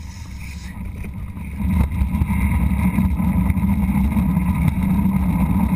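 Low, steady rumbling of travelling fast over an asphalt road, growing louder about one and a half seconds in.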